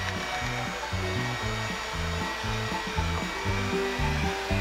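Electric hand mixer running at a steady speed, beating cake batter in a glass bowl, with a steady whine. Background music with a repeating bass line plays underneath.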